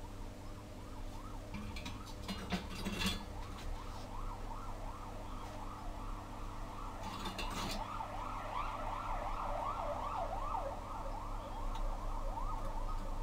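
A siren in fast yelp mode, its pitch rising and falling several times a second, faint at first and growing louder from about eight seconds in. Brief handling rustles and knocks come about two seconds in and again near seven seconds.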